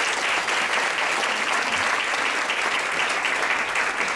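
Audience applauding steadily, a dense patter of many hands clapping in a large room.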